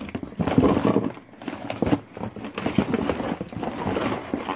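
Rummaging through a cardboard box of papers and odds and ends: paper and cardboard rustling, with many small irregular clicks and knocks as objects are shifted about.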